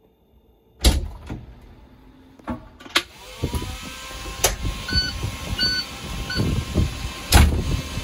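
Inside a Pierce fire engine's cab: a heavy thump about a second in, then a rising whine from about three and a half seconds that levels off as the engine comes to life, with an uneven low rumble. Three short electronic beeps follow, and another heavy thump comes near the end.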